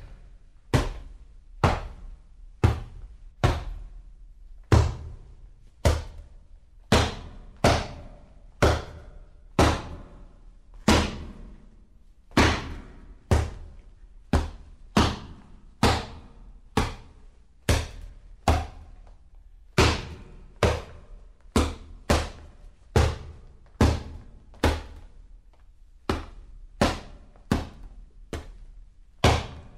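Punches landing on a leather punching bag: a steady series of sharp thuds, about one a second, each dying away quickly.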